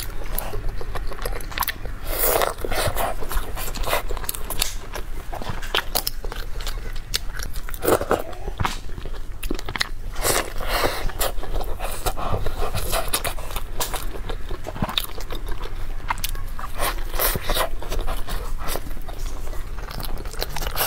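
A person biting into and chewing steamed buns and dumplings, with many irregular wet smacking and clicking mouth sounds.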